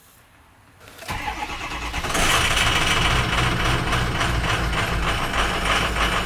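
Pickup truck engine started with the key: the starter cranks for about a second, the engine catches about two seconds in, and it then runs steadily at idle.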